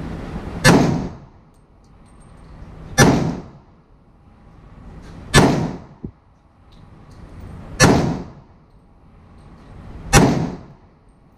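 Five aimed shots from a Glock 31 pistol in .357 SIG, fired from a CAA Micro Conversion Kit carbine chassis, evenly paced about two and a half seconds apart. Each sharp report rings on briefly in the enclosed indoor range.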